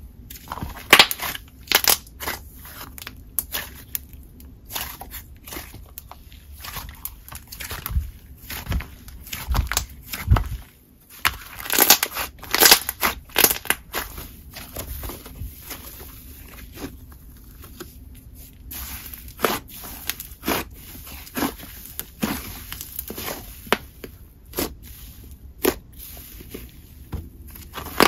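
Thick cloud cream slime with soft clay mixed in, being stretched, folded and pressed by hand, giving off irregular crackling sizzles.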